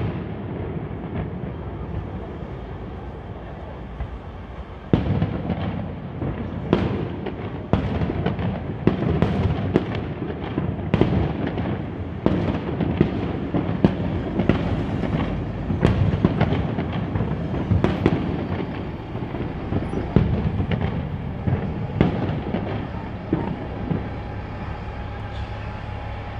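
Fireworks going off: a quieter opening, then from about five seconds in a dense, irregular run of bangs over a constant low rumble, thinning out near the end.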